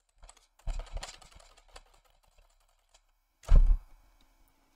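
Computer keyboard keys being pressed in a quick cluster of clicks, then a single louder thump about three and a half seconds in.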